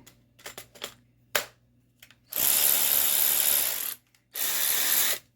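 A 12 V cordless electric ratchet's motor runs twice with no load: first for about a second and a half, then briefly again after a short pause. A few light clicks come before the runs.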